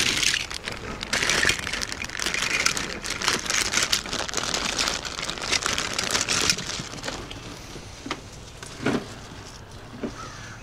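Crinkly rustling close to the microphone, thick with fine crackles for about seven seconds, then dropping to a quieter rustle with a couple of sharp clicks near the end.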